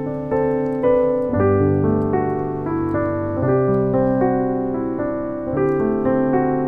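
Background piano music: slow, gentle chords and melody notes that strike and fade, changing about every second.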